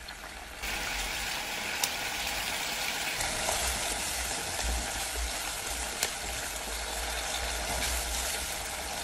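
Coconut milk boiling and sizzling hard in a pot as it cooks down toward coconut oil, the oil not yet separated; a steady bubbling and crackling that gets louder about half a second in.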